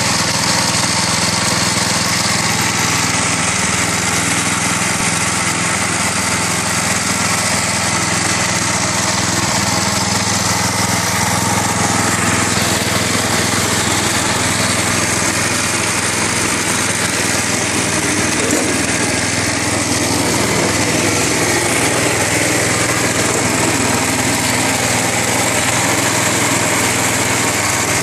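6 hp Briggs & Stratton single-cylinder four-stroke engine, fitted as a replacement in a Case 210 garden tractor, running at a steady speed.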